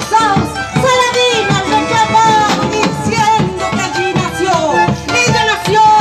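Live Argentine folk music: several bombo legüero drums beating in rhythm together with a drum kit and strummed acoustic guitar, with a melody gliding over them.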